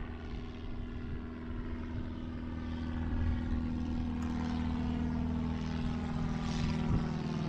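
Small propeller airplane flying over, its engine a steady drone that grows louder about halfway through.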